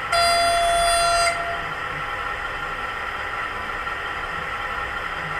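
Sound decoder of a PIKO H0 model DB Class 364 diesel shunter, played through the model's loudspeaker with the shunting-gear function (F7) switched on. It gives a single steady horn blast of about a second, then the recorded diesel engine sound runs on steadily.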